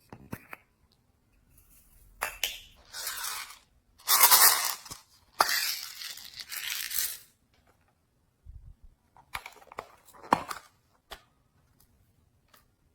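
Slime being stretched, squished and mixed by hand: a run of crackling, tearing bursts, the loudest a little past a third of the way in, then a few sharp clicks and pops near the end.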